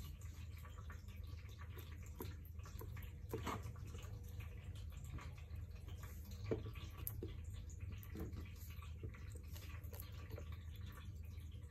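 Light clicks and taps as hands handle a lithium cell battery pack and fit its wired BMS board, with one louder tap about six and a half seconds in, over a steady low hum.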